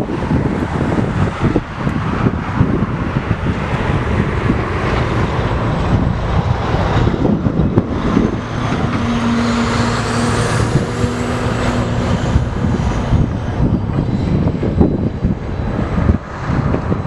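TasRail freight train passing close by: a loud, continuous rumble of wheels and wagons. A steady hum and a faint high whine that rises and falls come in around the middle.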